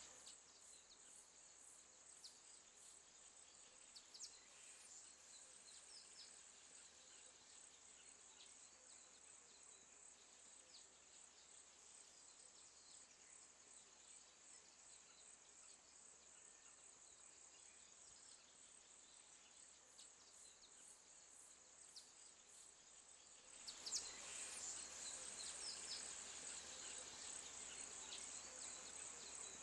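Faint, steady high-pitched insect drone with a few scattered small ticks, growing louder about 24 seconds in.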